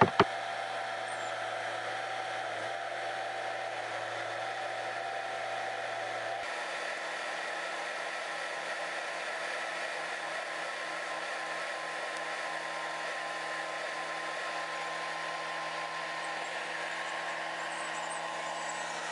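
Pressure washer running steadily, a constant mechanical drone with a few steady tones over a hiss. The sound shifts abruptly about six seconds in.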